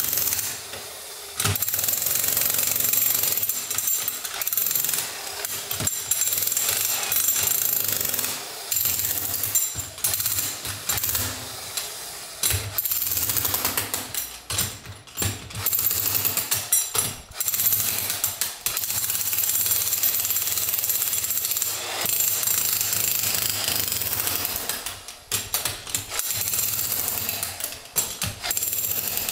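Corded electric demolition hammer driving a chisel bit into a stone flagstone floor. It runs in long bursts, stopping briefly several times, the first time about a second in.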